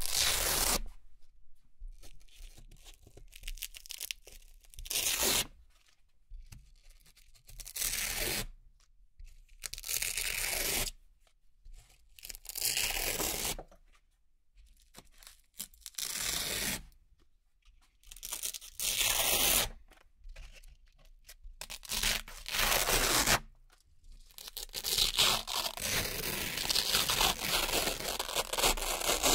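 Velcro hook-and-loop circles being peeled one at a time off a Velcro-covered board: crisp tearing rips, each about a second long, every two to three seconds, then a longer run of continuous tearing near the end.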